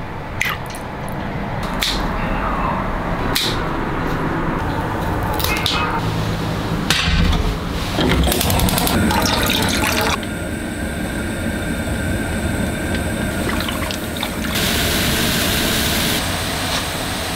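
Water sounds in a home kitchen: live shrimp splashing in a bowl of water with scattered sharp clicks, then a gas stove switched on under a wok. After that comes a steady hiss of water boiling hard in the wok.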